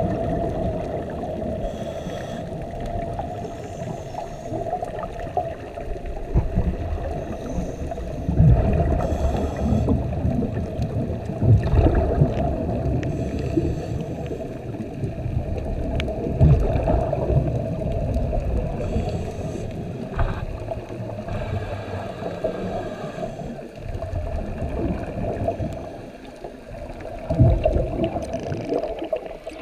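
Underwater noise: a steady hum with irregular low surges of moving water.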